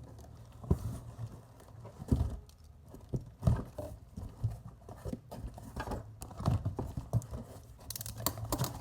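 A cardboard shipping box being opened and handled by hand: scattered knocks and rustling, with a quick run of tearing or ripping near the end.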